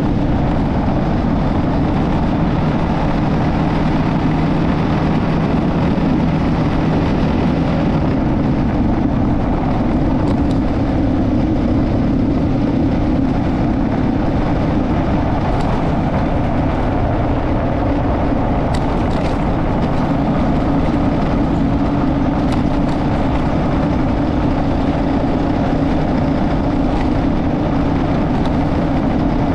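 Motorcycle on the move: a loud, steady engine and road rumble, with a low hum that stops about seven seconds in while the rest runs on unchanged.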